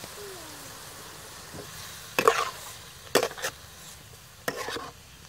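Metal spatula stirring and scraping beef slices around a steel wok over a steady sizzle of frying. There are three or four loud scrapes, roughly a second apart, starting about two seconds in.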